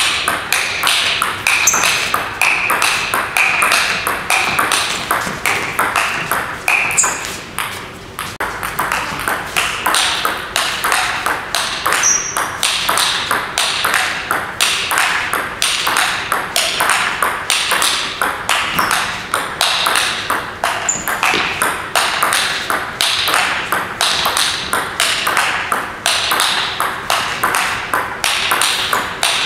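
Table tennis rally: the ball clicks off the players' bats and the table in a quick, steady rhythm, two or three clicks a second, with a short break about eight seconds in.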